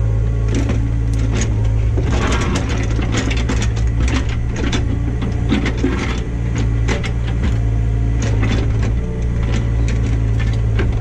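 Engine of a digging machine running steadily under load, with repeated knocks and scrapes of the bucket against rock and soil as it works a large rock loose.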